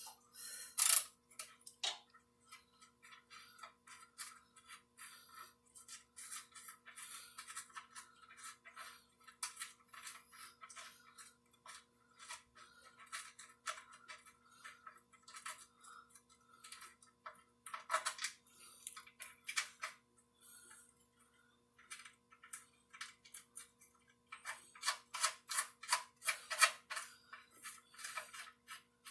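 Ratchet wrench with a 10 mm socket clicking in quick runs of sharp ticks as bolts are worked loose.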